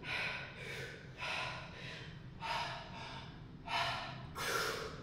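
A man breathing hard and fast from heavy exertion, about five or six forceful breaths roughly a second apart. The exertion comes from a set of 100 kg barbell squats worked close to failure, taken between reps.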